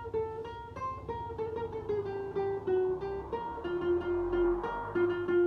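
Guitar playing the first part of a circus clown melody, a line of single notes stepping down in pitch, each note picked rapidly over and over.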